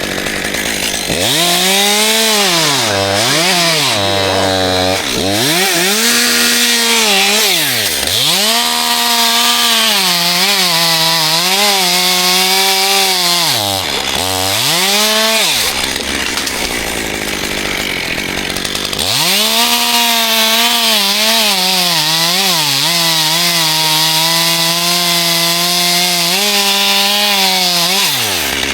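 Two-stroke chainsaw revved up and down repeatedly, dropping toward idle between throttle bursts. After a pause of a few seconds midway, it is held at steady high revs for most of the second half.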